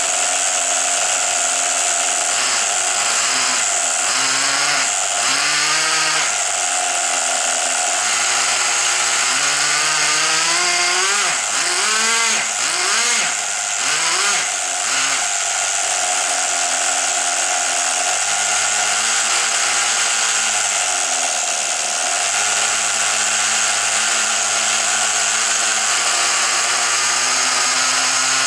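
Two-stroke glow engine of a Tamiya TGX 1/8-scale nitro RC car running with its wheels off the ground: a high, buzzing idle revved up and back down in short blips several times, with bigger revs in the first half.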